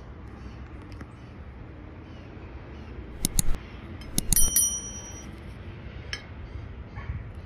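A steel knife clinking against a ceramic plate: a few sharp clinks about three seconds in, then a quick cluster of clinks a second later with a short bright ring.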